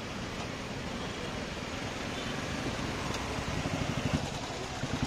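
Motorcycle engine idling close by in stopped traffic, a rapid low pulsing over the steady hum of the surrounding jammed traffic.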